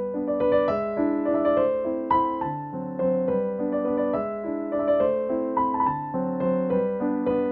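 Background music: a gentle piano melody of single sustained notes.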